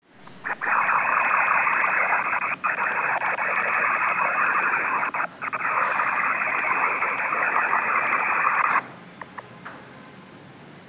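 Loud, steady hiss of static, thin and without any deep or high part. It drops out briefly twice, stops abruptly near the end, and is followed by a few faint clicks.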